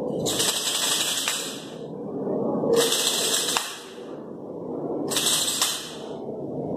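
A percussion shaker rattled in three bursts, each lasting about a second and a half.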